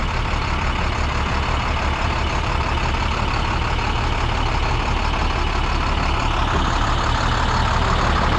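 International DT466 inline-six diesel idling steadily in a 2005 International 4300 truck, growing a little louder near the end.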